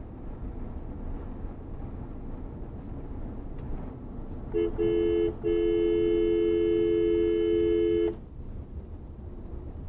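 Two-tone car horn honking: two short blasts about four and a half seconds in, then a long blast of nearly three seconds. It sounds over a steady hum of engine and tyre noise heard from inside the car.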